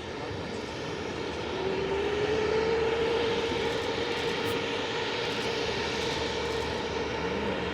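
Helicopter turbine engine noise, a steady rush with a whine that rises slightly about two seconds in and then holds.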